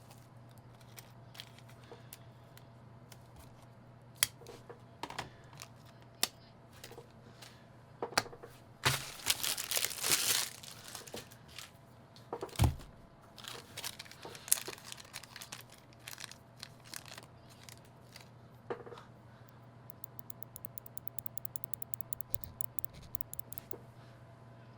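Packaging being handled and opened, with scattered clicks and taps. About nine seconds in comes a couple of seconds of tearing or crinkling, and a little after that a single thump. Near the end there is a rapid run of faint, high ticks.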